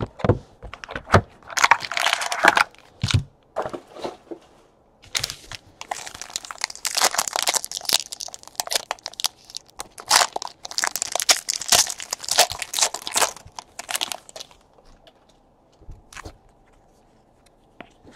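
Plastic wrapping crinkling and tearing as a sealed trading-card box and its pack are torn open by hand, with sharp taps of cardboard. The crinkling comes in bursts over about the first fourteen seconds, then only a few faint clicks.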